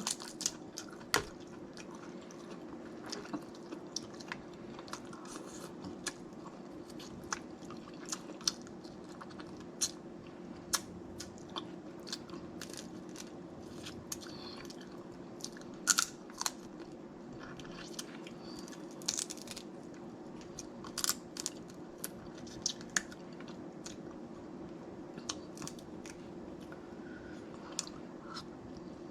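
Close-miked eating of snow crab legs in butter sauce: wet chewing with irregular sharp clicks and cracks of shell, over a steady low hum.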